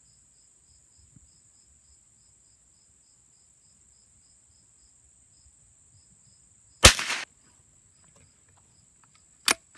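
A single .22 LR shot from a Savage Rascal youth rifle, a sharp crack about seven seconds in, over faint steady cricket chirping. Two small sharp clicks follow near the end.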